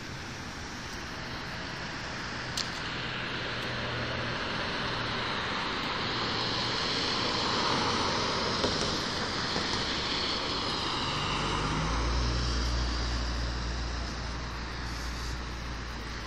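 Road traffic noise: the rush of passing vehicles swelling and fading, with a deep engine rumble coming in about two thirds of the way through.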